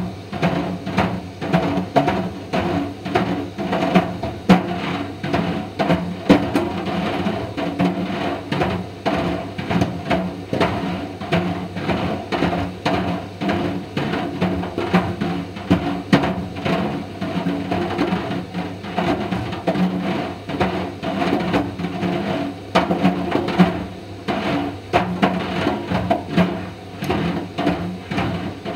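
Indesit IDV 65 tumble dryer running with a steady hum, while Mister Steamy dryer balls tumble in the drum and knock against it several times a second in an irregular clatter.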